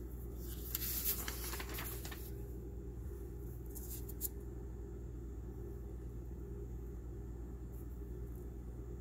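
Steady low room hum. A brief rustle comes about half a second in and lasts under two seconds, and a couple of light clicks follow near four seconds.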